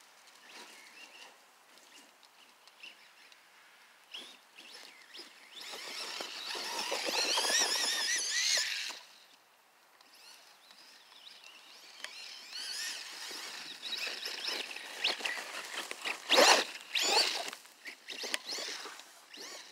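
Arrma Voltage RC dune buggy's 3900 kV brushless motor driving through powdery snow. Its high whine wavers up and down in pitch with the throttle and is loudest for about three seconds in the middle. Later come shorter bursts of whine and knocks, with one sharp loud noise near the end.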